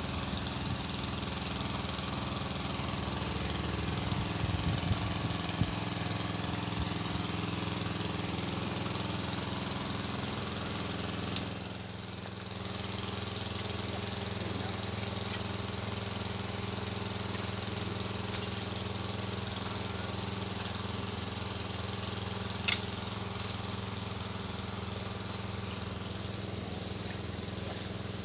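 Small engine running steadily at a constant speed. Two or three sharp clicks sound over it near the middle and later on.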